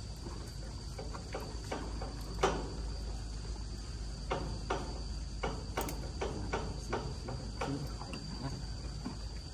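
Steady high-pitched drone of insects, crickets or similar, with a scattering of short sharp clicks and taps, the loudest about two and a half seconds in and a quick run of them in the second half.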